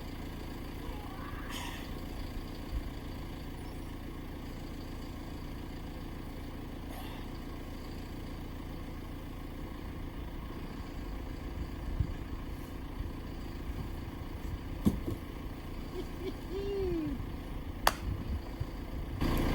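Loader tractor's engine running steadily while its front bucket lifts a railroad-tie beam, with a few sharp knocks in the second half.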